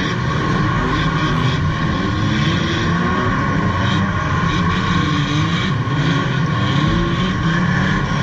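Several banger race car engines running and revving at once, their pitches rising and falling against each other, with a few knocks from cars making contact.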